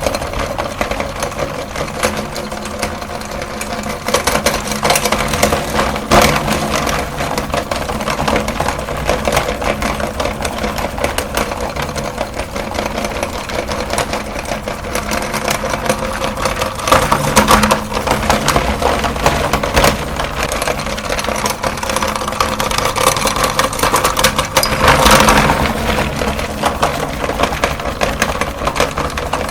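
Electric meat grinder running with a steady motor hum while it crushes jumbo sticks of chalk, with constant crackling and grinding and louder crunching bursts about halfway through and again near the end.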